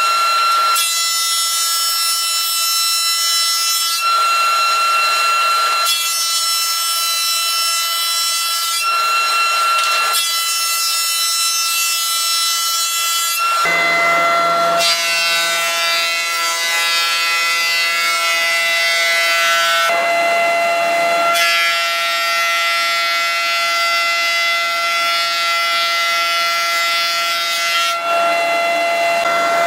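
Woodworking machine cutting reclaimed timber, running with a steady high whine. Boards go through in passes of a few seconds each, with the cutting noise coming and going. About halfway through, the whine drops to a lower pitch.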